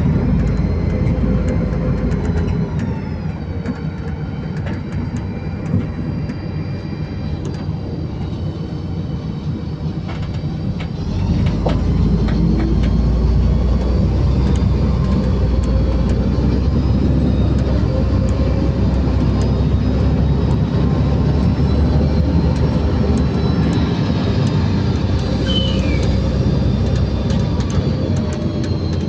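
LiAZ 5292.65-03 bus heard from inside the cabin while under way: steady engine and road rumble with whining drivetrain tones and scattered rattles. The tones dip in pitch early, then rise as the engine picks up and the whole sound grows louder about eleven seconds in.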